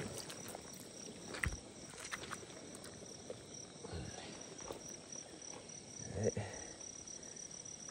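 Insects chirring steadily in a high, even trill, with a few soft knocks and thumps in between.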